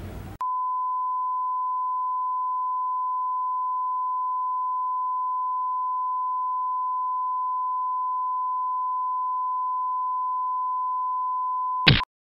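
A steady, high-pitched electronic tone, one pure unchanging pitch like a test tone, cuts in sharply about half a second in and holds for about eleven seconds. It ends near the end with a very short, loud burst of noise.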